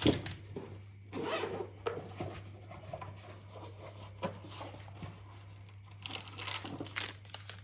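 A zipper being pulled open in several short rasping strokes, with packaging handled in between.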